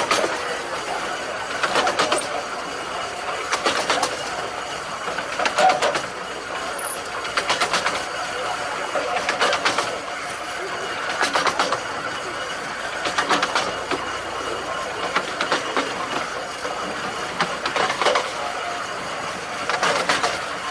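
15-inch gauge railway carriage running along the track, heard from an open window: a steady running noise with a cluster of wheel clicks over the rail joints about every two seconds.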